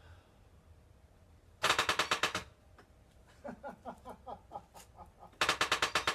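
Chevy V8's starter solenoid chattering in two fast bursts of rapid clicks instead of cranking the engine over, which the builder takes for a low battery.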